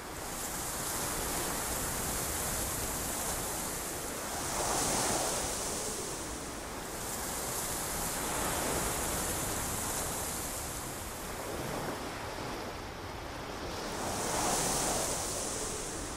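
Ocean surf washing onto a beach: a steady hiss that swells and falls with each wave, loudest about five seconds in and again near the end.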